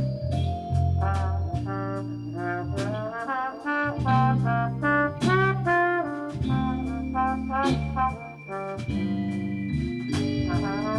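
Military band's brass section, trumpets and trombones, playing a jazz-style arrangement in short punchy phrases over a bass line and a steady drum beat.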